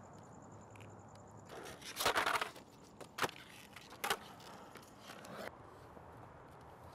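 Skateboard rolling on concrete, a rough rumble with a loud gritty burst about two seconds in and two sharp clacks about a second apart after it.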